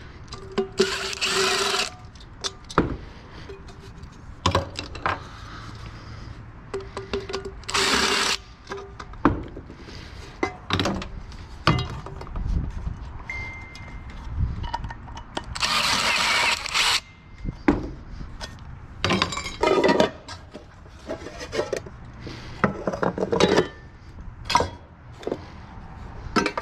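Cordless drill-driver fitted with a security bit, spinning in short runs of about a second with a whining motor as it backs screws out of microwave handles. Between the runs come clicks and clinks of loose metal parts.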